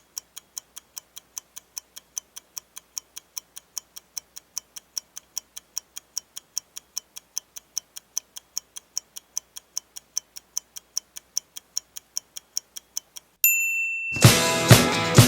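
Steady, evenly spaced clock-like ticking, a few ticks a second. Near the end it gives way to a short high ding, and then rock music with guitar and drums starts.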